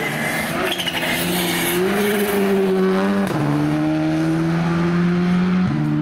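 Rally car engine accelerating hard through a bend, its note climbing, then dropping sharply at an upshift about three seconds in, with another shift in pitch near the end.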